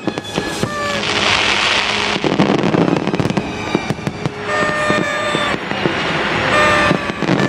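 Fireworks going off in quick succession, sharp bangs and crackles with a hissing burst about a second in. Under them a crowd shouts and blows noisemaker horns, heard as steady held tones.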